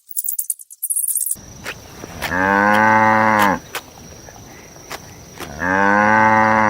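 Two long, level animal calls, each about a second, some three seconds apart, over a thin steady high whine. A brief high rattle cuts off just over a second in.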